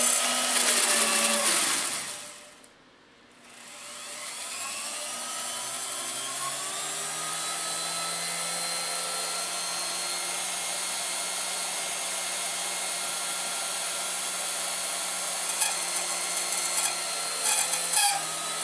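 Homemade tool post grinder with a thin cutoff disc on a lathe, acting up in a way the owner suspects is the cutting wheel. It winds down and stops about two seconds in, then spins back up with a rising whine and runs steadily. A burst of crackling and scraping comes near the end.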